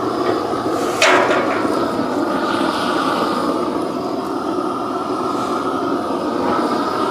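Propane weed-burner torch burning with a steady rushing noise. About a second in there is one sudden loud burst that fades within half a second.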